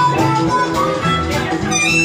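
Small band playing live: harmonica over keyboard, double bass and drums.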